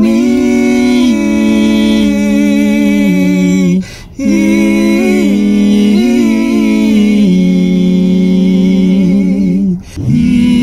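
Two men singing a Kyrgyz song without accompaniment, holding long drawn-out notes together in harmony that step slowly up and down. There are short breaks for breath about four seconds in and near the end.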